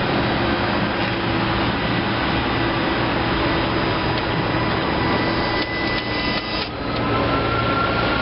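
Kohler 25 HP gas engine of a Hustler Raptor zero-turn mower running steadily.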